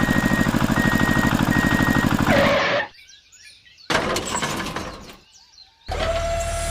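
Small engine running with a fast, even chug while a high beep sounds three times, cut off abruptly a little under three seconds in. After a short noisy stretch and two quiet gaps with faint chirps, a steady hiss with one held tone starts about six seconds in.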